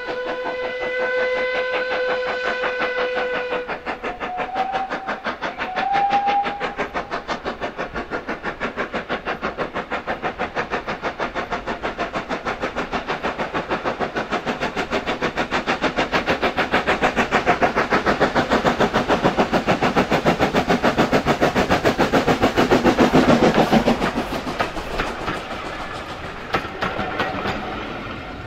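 Metropolitan Railway E Class No. 1 steam tank locomotive sounds a long whistle, then two brief higher notes. Its exhaust beats follow in a steady fast rhythm, growing louder as it approaches, loudest as it draws level. The coaches then roll past with a lighter clickety-clack.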